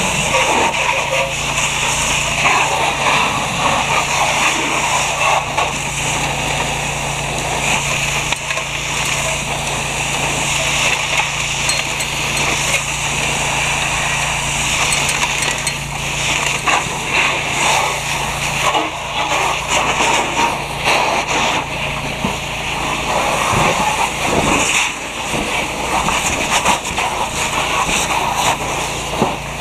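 Fire hose spraying a water stream onto a burning car: a loud, steady rush of water hitting the flames and bodywork, with a low steady hum underneath.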